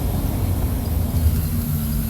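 Mercedes-Benz OF-1722 bus engine running with a steady low drone.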